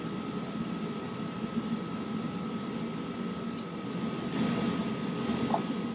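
Steady mechanical hum with a constant faint high whine. There is a sharp click about three and a half seconds in, and a few light ticks follow.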